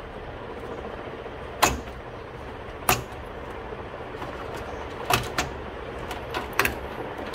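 Half a dozen sharp clicks and knocks of hard plastic and metal parts being handled as a desktop PC's CPU cooler fan is unlocked and taken off the processor.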